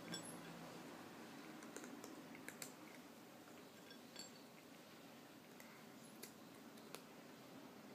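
Faint, scattered small clicks and ticks of a kitten eating cat food from a dish, over a low even hiss.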